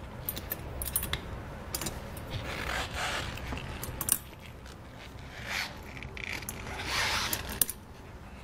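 Steel square-link tire chain clinking and rattling against the tire as the hooks of a rubber chain adjuster are clipped onto its links by hand: irregular small metal clicks with scraping and rubbing between them.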